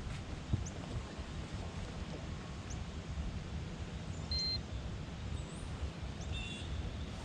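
Low, uneven outdoor rumble, with a few short, faint bird chirps about halfway through and again near the end.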